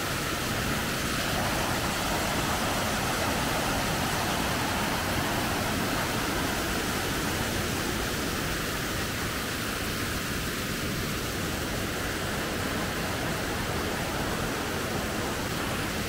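Small waterfall pouring over a rock slab into a pool: a steady rush of water.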